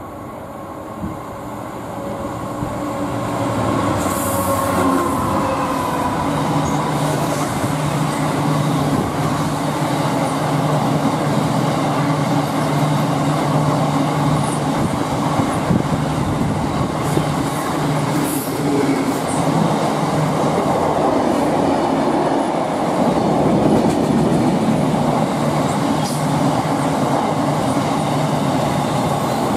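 Class 66 diesel-electric freight locomotive, its two-stroke EMD V12 engine running with a steady drone that builds as it approaches and passes. The drone then gives way to the steady rolling of a long train of hopper and box wagons, their wheels running on the rails.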